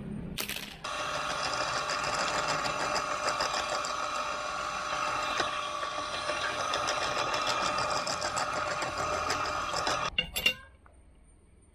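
Electric drill press running and drilling into a clamped wooden mould block: a steady whine with several tones that starts just under a second in and cuts off about ten seconds in. It is framed by a click as it starts and a sharp knock, the loudest moment, as it stops.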